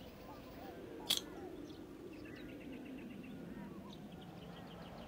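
Faint ambience of small birds chirping and twittering, with one short sharp click about a second in.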